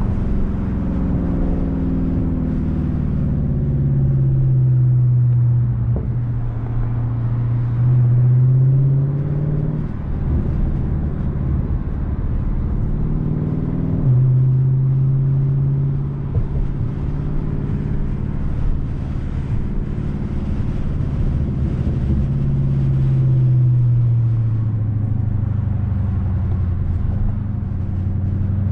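2020 Dodge Charger Scat Pack's 392 HEMI V8 running through a mid-muffler-deleted exhaust on the move. The engine note rises and falls with the throttle, with a sudden jump up in pitch about halfway through.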